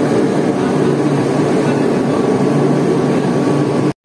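Steady machinery drone of a ship's engines running on deck, with a low, even hum. It cuts off suddenly near the end.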